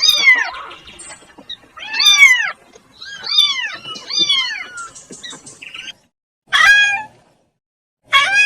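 Kittens meowing: about six short meows, each rising and then falling in pitch, with pauses of a second or two between them.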